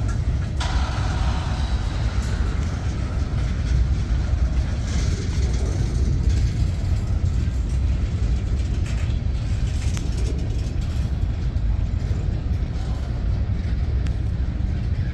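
Freight train cars rolling past: a steady low rumble of steel wheels on the rails, with a few sharper clanks.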